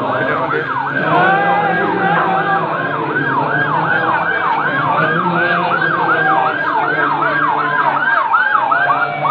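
Emergency-vehicle sirens in a fast yelp, pitch sweeping up and down about three times a second without a break, with more than one siren overlapping at times: the warning of a vehicle escort clearing a path through a crowd.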